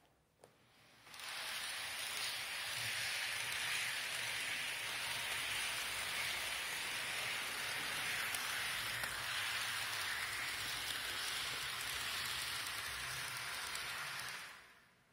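Model train running on its track, heard as a steady, even hiss with the microphone close against the wooden tabletop. The hiss starts suddenly about a second in and stops suddenly near the end.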